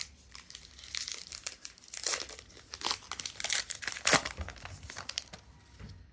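Crinkly plastic wrapper of a baseball card pack being torn open and crumpled by hand: an irregular run of crackles and rustles, with the loudest crunches about two, three and four seconds in.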